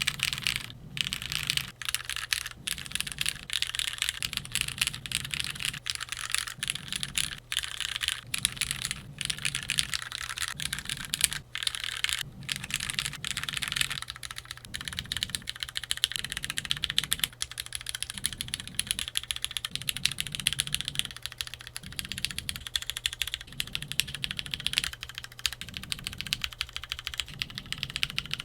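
Continuous fast typing on a Keychron Q3 tenkeyless mechanical keyboard with lubed Cherry MX Black Hyperglide linear switches and GMK keycaps: a dense, steady run of keystroke clacks.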